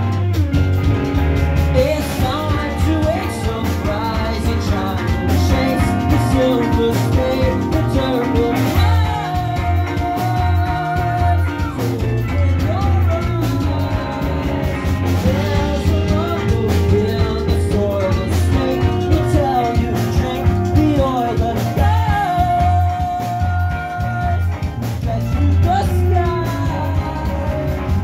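Live rock band playing a song: electric guitar, bass guitar and drums under a sung lead vocal.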